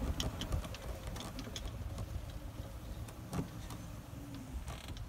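Golf cart driving slowly over grass: a low steady rumble with scattered short clicks from the cart.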